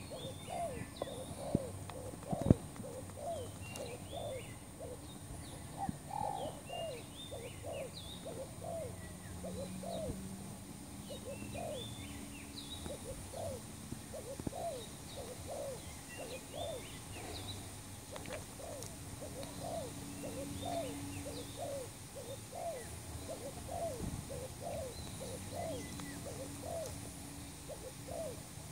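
Spotted doves cooing in a continuous run of short, low notes, with small birds chirping higher above them. This is the decoy-dove calling used to lure wild spotted doves. A single sharp knock sounds about two and a half seconds in.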